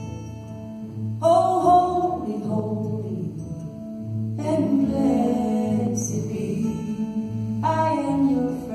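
Live acoustic folk duo: singing in three long phrases over acoustic guitar and a steady walking line of low notes on upright bass.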